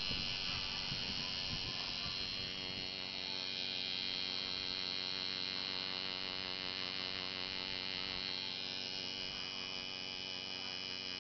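Coil tattoo machine buzzing steadily as its needle works into skin, a continuous electric hum with a slight wavering in pitch.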